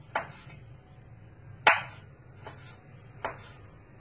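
A large kitchen knife chopping food on a cutting board: three main strikes about a second and a half apart, the middle one loudest, with a few lighter taps between.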